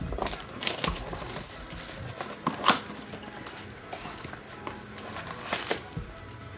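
Rustling and crinkling of trading-card packaging and cards being handled as a Panini Mosaic football blaster box and its packs are opened, with scattered sharp clicks and snaps, the loudest about two and a half seconds in.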